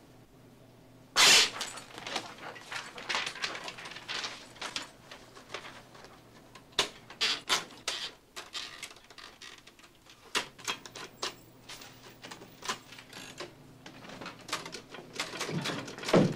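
Manual office typewriters clacking in irregular runs of keystrokes, with paper being handled. A loud sudden clack comes about a second in, and another near the end.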